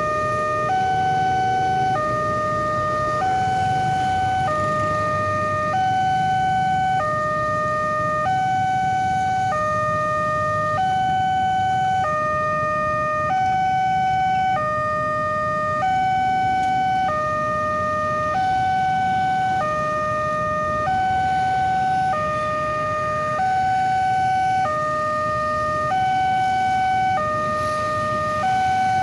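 Railway level-crossing warning alarm sounding from the loudspeaker on the crossing's signal mast: an electronic two-tone alternation, high then low, each tone held a little over a second, repeating steadily.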